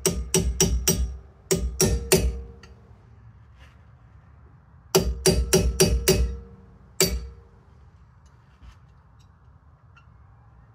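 Hammer blows driving the brake pad retaining pin back into a Porsche Macan front caliper. The blows come in quick bursts of three to five taps, each leaving a short metallic ring.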